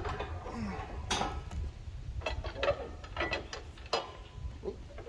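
Steel trailer loading ramps being lifted and swung upright by hand, clanking and rattling against their hinges and the trailer deck in a string of sharp metallic knocks.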